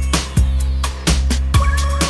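Electronic dance music with a heavy bass line and a fast, hard-hitting drum beat.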